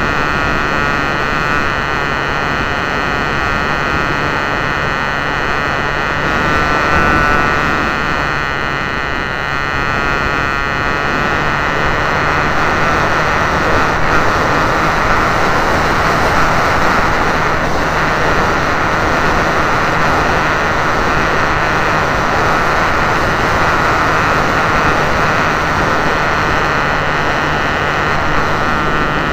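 Radio-controlled Wild Hawk model airplane in flight, heard from a camera mounted on it: the motor and propeller run steadily under heavy wind rush on the microphone.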